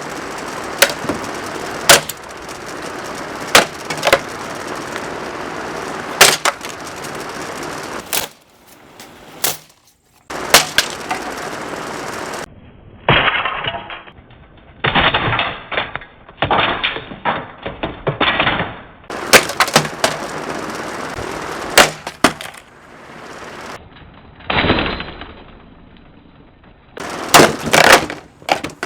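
Plastic Lasko box fan being smashed: a series of loud, sharp hits and cracking plastic, in several separate bouts. A steady rushing noise runs beneath the first hits and stops about eight seconds in.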